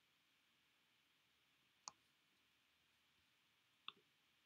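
Near silence, broken by two faint single mouse clicks on a computer about two seconds apart.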